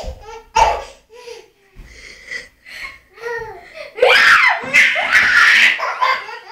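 A baby laughing in short, breathy bursts, breaking into a loud laugh about four seconds in that lasts a couple of seconds.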